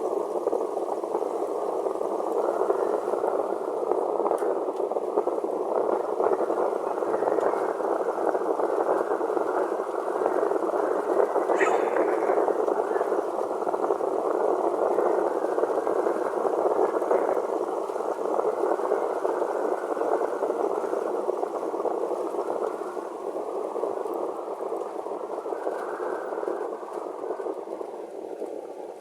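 A dense chorus of many frogs calling at once, a continuous overlapping croaking that fades out near the end.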